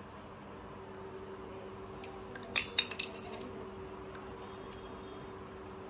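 Aluminium screw cap of a small glass medicine bottle clicking against the bottle's neck as it is put back on and twisted: one sharp click about two and a half seconds in, then a few lighter ones. A steady low hum runs underneath.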